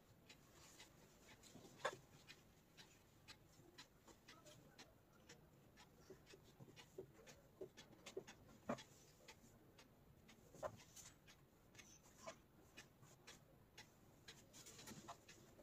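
Faint, irregular light clicks and soft handling noises of satin fabric being gathered and pinned on a dress form, the sharpest clicks about two seconds in and again around nine and eleven seconds in.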